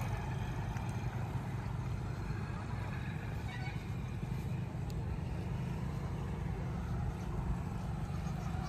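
Steady low rumble of outdoor background noise with a faint hiss above it, with no distinct event.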